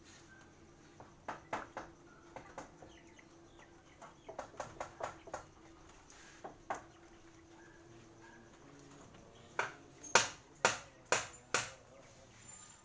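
A series of sharp knocks: small clusters of lighter ones, then five loud ones about half a second apart near the end.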